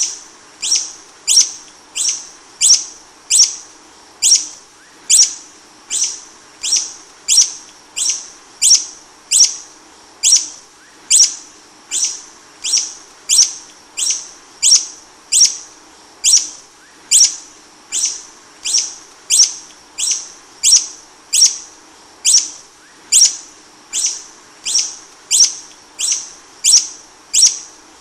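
A hummingbird's short, high-pitched chip note, repeated at an even pace of about three every two seconds.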